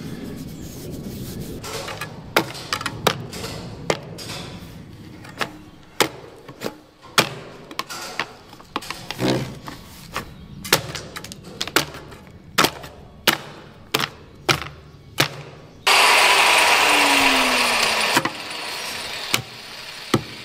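A long series of sharp hammer blows, a bit over one a second, knocking at a buried drain-pipe joint to work it loose. Near the end a loud noise cuts in suddenly and lasts about two seconds.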